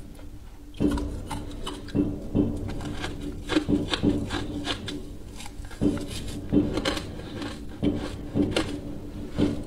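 Close-up crunching and chewing of frozen ice chunks coated in green powder, an irregular run of crisp crunches, with a metal spoon scraping and scooping in the bowl.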